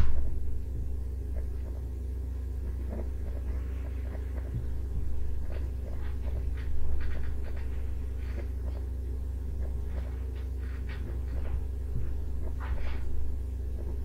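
Steady low electrical hum with several even tones, from the recording setup. Scattered soft clicks sound over it, with one sharp click right at the start.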